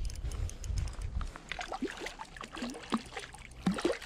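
Water splashing and plopping as a hooked trout thrashes at the surface close to shore, with a low rumble in the first second or so.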